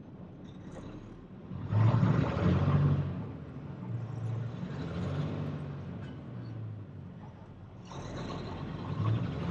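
Heavily loaded dump truck's diesel engine pulling hard under load while the truck works to get unstuck from sand. It surges loudly about two seconds in, eases off over the next few seconds, then builds again near the end.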